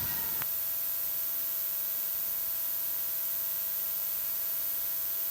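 Steady electronic hiss with a low hum from the audio system's noise floor, with one small click about half a second in.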